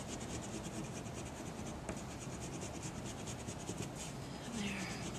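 Coloured pencil scratching back and forth on paper, rapid, even strokes several times a second, colouring in a small area.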